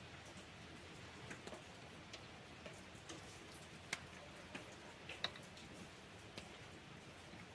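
Quiet background hiss with faint, short clicks at irregular intervals, the sharpest about four and five seconds in.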